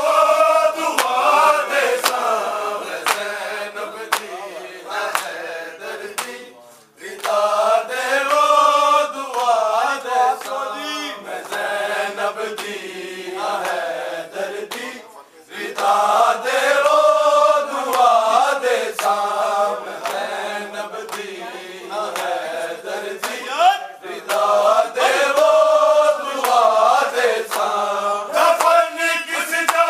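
Men's voices chanting a Shia mourning lament (noha) together in long rising and falling phrases, with short breaks between verses. A steady beat of sharp slaps, about two a second, runs under the chant: hands beating on chests in matam.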